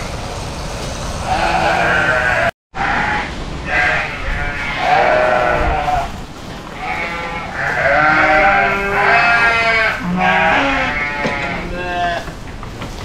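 A flock of sheep bleating, many calls overlapping one another. The sound cuts out completely for a moment about two and a half seconds in.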